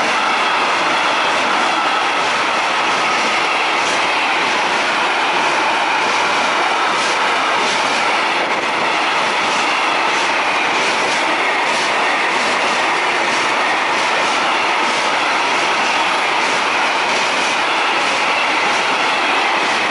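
Intermodal freight train of semi-trailers on pocket wagons passing close at speed: a steady loud rush and rumble of wheels on rail. Repeated clicks come from wheelsets crossing rail joints, under a faint ringing tone.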